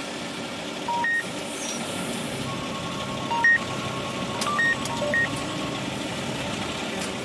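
Vehicle engines idling in a steady rumble, with short two-note electronic beeps about a second in and again about three and a half seconds in, then a quick cluster of beeps around five seconds. A faint steady tone runs through the middle.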